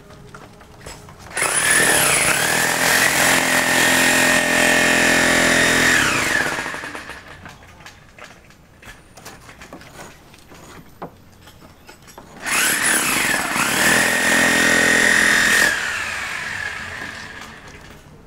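Electric power tool run twice, about five seconds and then about four seconds: its motor whines up in pitch as it starts, holds a steady high whine, and winds down as it stops.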